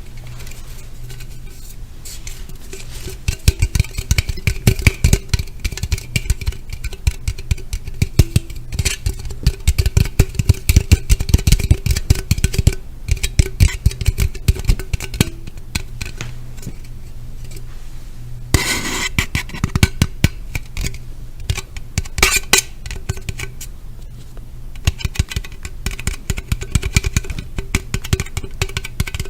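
Rapid tapping and scratching on objects close to the microphone, in dense runs, with a short rustling burst about two-thirds of the way in, over a faint steady hum.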